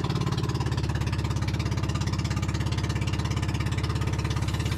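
Outrigger pump boat's engine running steadily at cruising speed, with a rapid, even pulse.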